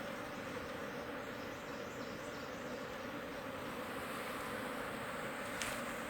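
A swarm of wild honey bees buzzing steadily as one dense hum, with a couple of faint clicks near the end.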